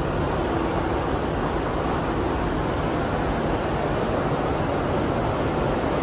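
A steady, even rushing roar with no distinct events in it.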